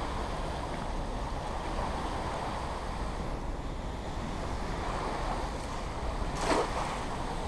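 Steady rush of the dam spillway's outflow water, running at about 1000 cubic feet per second, with a brief louder swish about six and a half seconds in.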